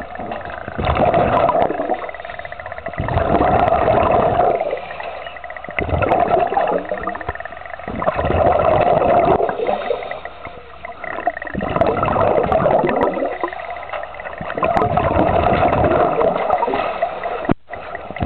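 A diver breathing underwater through a regulator, the exhaled air gurgling out as bubbles, in loud swells every two to three seconds.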